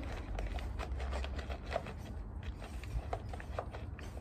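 Vacuum cleaner parts being handled during disassembly: irregular light clicks and knocks over a low rumble.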